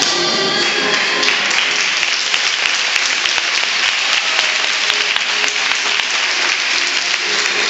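Audience applauding, a dense patter of clapping that starts about a second in and fades near the end, over quieter background music.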